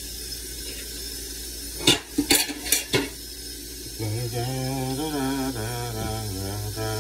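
A quick run of sharp clatters of dishes and metal utensils about two seconds in. From about four seconds a song starts: a steady low drone under a wavering sung melody.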